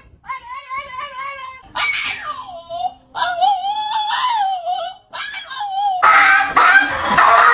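A cat meowing in a string of long, drawn-out cries that waver and fall in pitch, with a louder, denser jumble of sound from about six seconds in.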